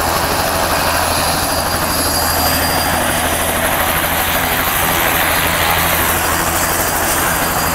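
Light turbine helicopter running on the ground after landing, rotor turning: a steady, fast low rotor beat under a high, steady turbine whine.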